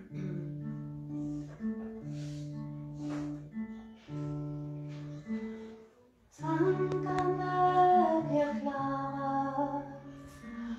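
Acoustic guitar playing a slow song introduction in short phrases of held notes. A brief pause comes about six seconds in, then the music returns louder and fuller.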